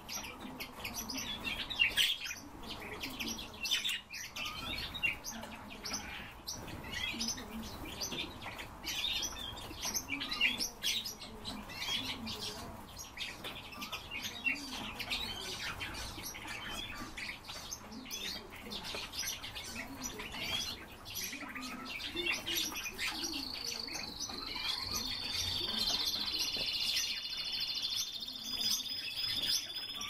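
Many cage birds, among them a common starling and Eurasian bullfinches, chirping and calling in quick, overlapping notes. About two-thirds of the way through, a steady high trill joins in and keeps going.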